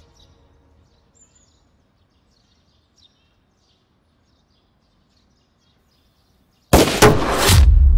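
Near silence with faint high chirps like birds, then near the end a sudden loud blast: two or three sharp hits close together, followed by a deep lingering rumble.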